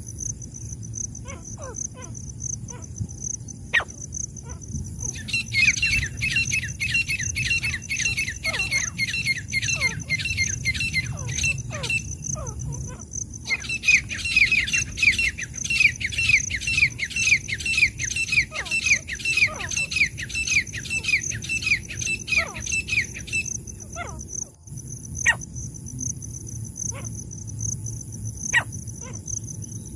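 Francolin (teetar) calling in two long runs of rapid, repeated squeaky notes, about three or four a second, the second run starting about halfway through. A steady high insect trill runs underneath, with a few scattered short chirps.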